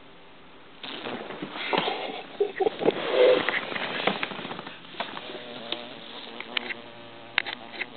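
A fly buzzing as it beats its wings while harnessed to a tiny matchstick plane. The buzz starts about a second in, mixed with scattered sharp clicks and ticks, and settles into a steadier hum in the second half.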